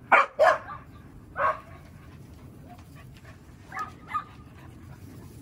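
Cardigan Welsh Corgis barking and yipping in play: two sharp barks right at the start, another about a second and a half in, and two fainter ones near four seconds.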